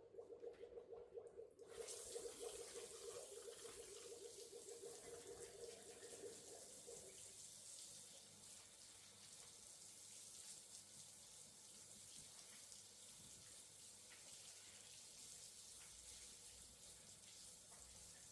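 Water tap turned on about two seconds in, running steadily into a sink. A faint pulsing buzz runs alongside it and dies away about seven seconds in.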